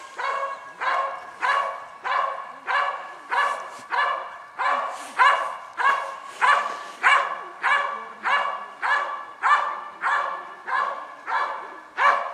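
A protection-trained dog barking steadily and rhythmically at a motionless helper in a bite suit, nearly two loud barks a second without a break: a bark-and-hold, the dog keeping the helper at bay by barking instead of biting.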